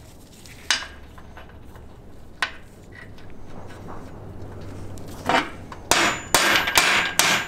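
Small sledge hammer striking a pin punch, metal on metal, in a quick run of about six blows in the last two seconds, after a couple of light clicks as the parts are set in place. The blows are driving the stock trunnion and needle bearings out of an LS rocker arm seated on a socket, for a trunnion upgrade.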